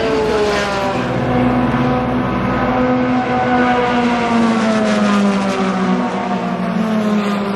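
Chevrolet Corvette C8.R GT race car's 5.5-litre flat-plane-crank V8 running at speed as it passes. The loud, steady engine note falls slowly in pitch.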